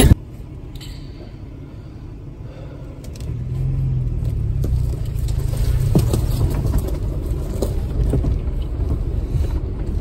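Engine and tyre rumble heard from inside the cab of an off-road vehicle driving slowly on a dirt trail. It grows louder about three seconds in, with a few light knocks and rattles.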